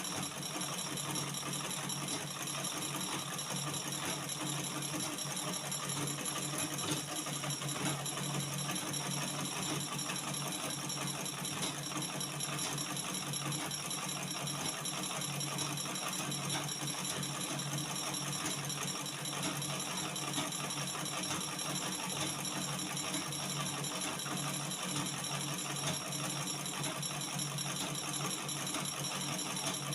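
Manual treadle sewing machine running steadily, a continuous mechanical rattle of the needle and treadle drive as a circle is stitched.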